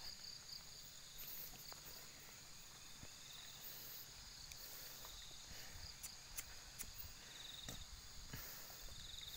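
Faint steady chorus of crickets and other insects, with short trills now and then, and a few soft thumps and clicks of footsteps on a dirt track.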